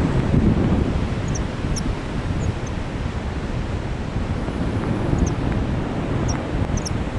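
Wind rushing over the microphone of a paraglider pilot's camera in flight: a steady, low rumble of airflow, with a few faint, short high chirps over it.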